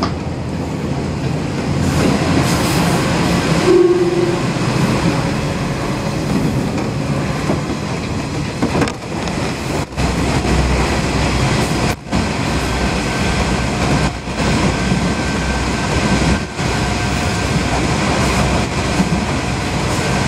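Train running, heard from inside the carriage: steady wheel and track noise, with a short horn-like tone about four seconds in. About ten seconds in it enters a tunnel and a deeper rumble sets in.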